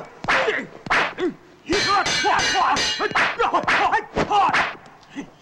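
Martial-arts film fight soundtrack: a rapid run of dubbed punch and kick impacts mixed with the fighters' short shouts and grunts, and a few ringing clangs about two to three seconds in.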